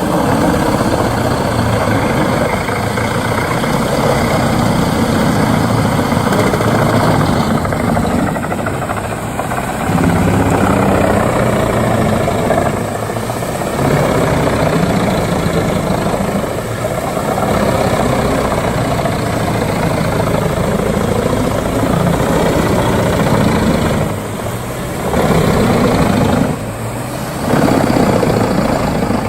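Heavy wood chipper machinery running loudly and steadily, its engine drone dipping briefly twice near the end.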